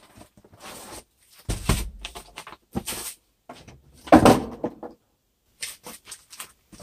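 A cardboard box and the plastic-bagged air mattress inside it being handled and unpacked: irregular rustling and crinkling, with two louder thumps about one and a half seconds in and about four seconds in.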